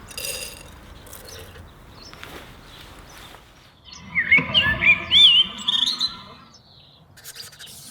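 A songbird singing a short phrase of rising and falling whistled notes, lasting about two seconds and starting about four seconds in, after a brief high chirp at the start.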